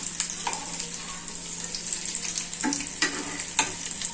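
Coated tilapia pieces shallow-frying in oil in a nonstick pan, a steady sizzle, with about five sharp clicks and scrapes of a metal spatula against the pan as the pieces are turned over.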